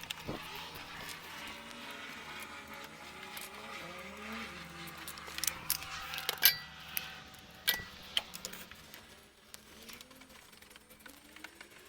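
Metal tools and parts clinking, several sharp clicks about halfway through, over a low hum that rises and falls in pitch like a vehicle running.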